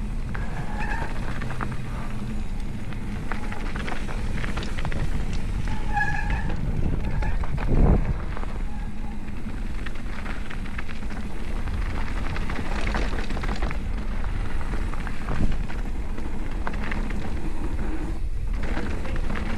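Mountain bike rolling down a rough dirt trail: a steady rumble of tyres and rattling of the bike, with small clicks throughout, a heavy knock about eight seconds in and a lighter one near fifteen seconds.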